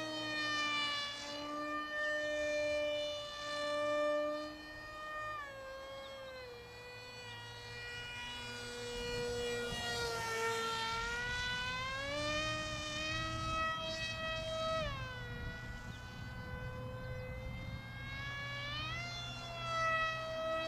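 Homemade F-22 radio-controlled model plane's motor whining in flight, its pitch rising and falling every few seconds as the throttle is changed, with a rushing swell of noise about halfway through as it passes closer.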